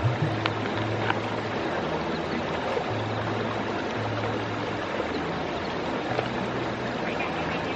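Steady rush of a flowing river under soft background music with low held notes. A few faint clicks of a metal spoon against a plastic food box in the first second or so.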